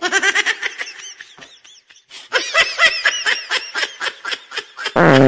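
Comic laughter sound effect: a rapid, high-pitched string of giggles, about six a second, with a short break about two seconds in. Near the end a loud fart sound effect begins.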